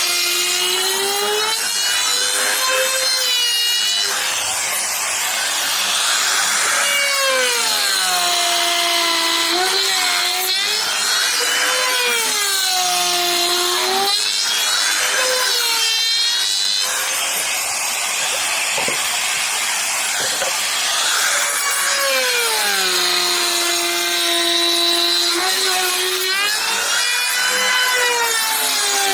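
Electric power tool cutting wood: a high motor whine that sags in pitch as the tool bites into the wood and climbs back as it frees up, again and again.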